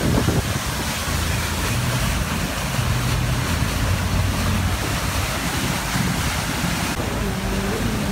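Motorboat running under way, its engine a steady low hum under the rush of water and wind buffeting the microphone.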